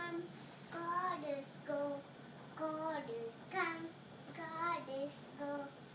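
A child singing a tune unaccompanied, in a series of short held and bending notes.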